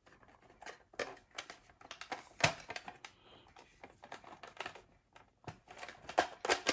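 Irregular clicks and knocks of hard plastic and metal parts being handled and pushed into place while a binding part of the rotary phone's housing is worked into position. The loudest knock comes about two and a half seconds in, with another cluster near the end.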